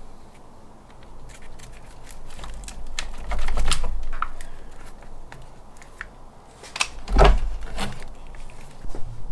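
Hands and tools working on plastic dashboard parts of a Jeep Grand Cherokee: scattered clicks, rustling and rattles, with a louder knock about three and a half seconds in and another about seven seconds in.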